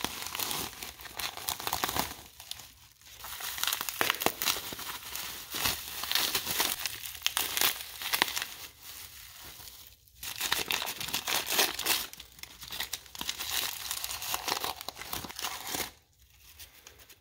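A parcel's packaging being opened and handled by hand: a crackly rustling that runs in stretches of a few seconds, pausing briefly about 2.5 seconds in, again about 10 seconds in, and dying away near the end.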